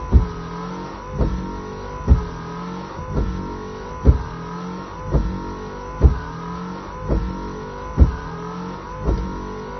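Nissan Note's rear windshield wiper heard from inside the car: the wiper motor whirs, its pitch sliding up and down as the blade sweeps back and forth, with a knock at each end of the stroke about once a second.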